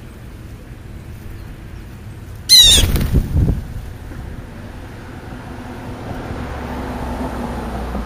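House sparrows and a European starling flushing from the ground feeding pile together: a sudden loud burst of wingbeats about two and a half seconds in, lasting about a second. Over the last few seconds a low rumble slowly builds.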